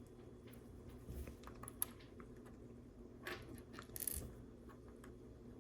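Small plastic LEGO pieces clicking and rattling as they are handled and fitted together, with a sharp click just under two seconds in and a short clatter around three to four seconds in.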